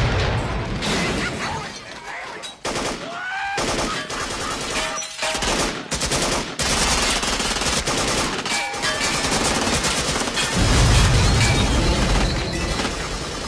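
Sustained automatic gunfire from a movie shootout, with rapid shots running on and on. A loud explosion with a deep rumble comes near the end and is the loudest moment.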